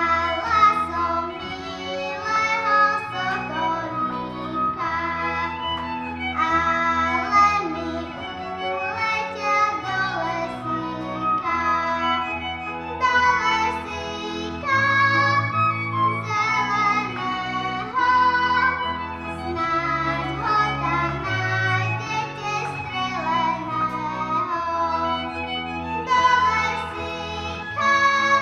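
Slovak folk song sung with instrumental accompaniment, the melody moving in short phrases over a steady accompaniment.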